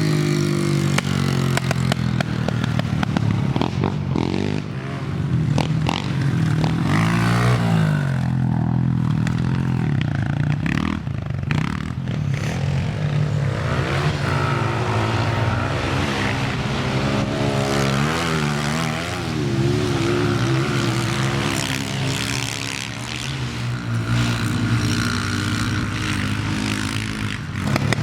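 Small single-cylinder four-stroke pit bike engines being ridden, the revs rising and falling repeatedly through gear changes and throttle blips.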